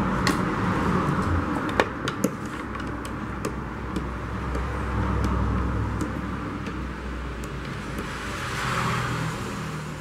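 Steady background rumble and hiss that swells twice, with a few light clicks and knocks as a screwdriver and the plastic motor housing of an Arno blender are handled.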